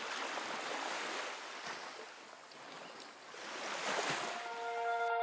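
Ocean surf washing in and out as a hiss of water, swelling twice. Steady sustained music tones begin near the end.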